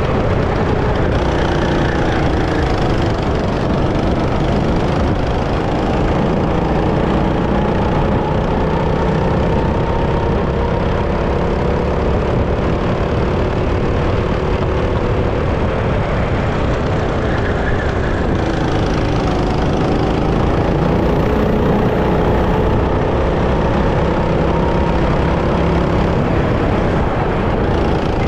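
Go-kart engine running hard, its pitch rising and falling again and again as the throttle opens and closes.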